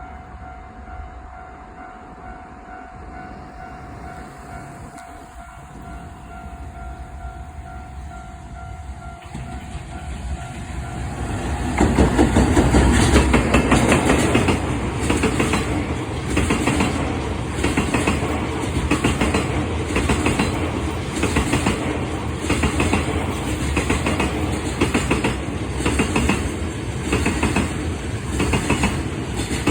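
Level crossing alarm ringing with a steady electronic tone while a freight train approaches. About twelve seconds in, the train reaches the crossing and passes loudly, its wheels clattering over the rail joints in an even, repeating rhythm.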